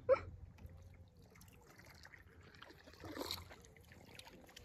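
Faint trickle and splash of river water around a paddleboard being paddled along.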